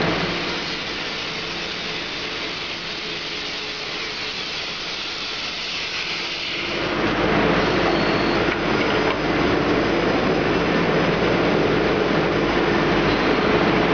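CNC sheet-metal V-grooving machine running, a continuous mechanical noise. It is somewhat quieter for the first few seconds and grows louder and fuller from about seven seconds in.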